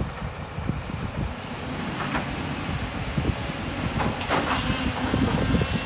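Volvo EC350 excavator's diesel engine running while its bucket dumps a load of dirt and rocks into a steel dump-truck bed, giving an irregular rumbling clatter of soil and stones landing. Sharper scraping sounds come about two seconds in and again around four seconds in.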